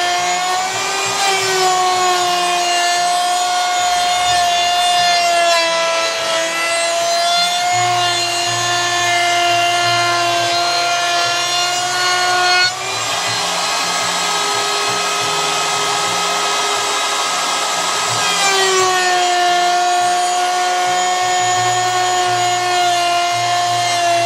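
Router running in a benchtop router table with a steady high whine while oak pieces are fed across the bit. For about six seconds past the middle the whine drops back and a rougher cutting noise takes over as the bit bites into the wood.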